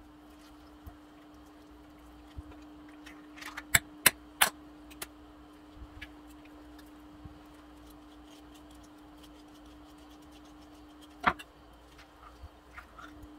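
Kitchen utensils clinking and tapping as avocado is scooped, diced and dropped into a bowl: three sharp clicks in quick succession about four seconds in, another near the end, and soft ticks between. A faint steady hum runs underneath.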